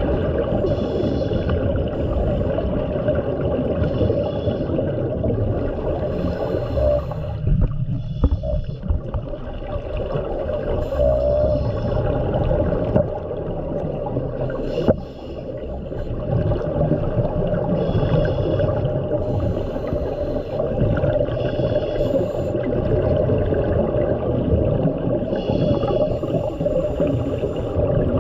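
Underwater sound of a scuba diver breathing through a regulator: short hissing, bubbling bursts of breath recur every two to three seconds over a steady low underwater rumble.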